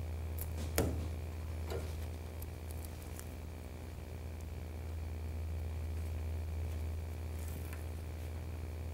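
Hands laying double-sided basting tape along the edge of a bare metal car door shell: a sharp tap about a second in, a softer one shortly after, and faint small ticks, over a steady low hum.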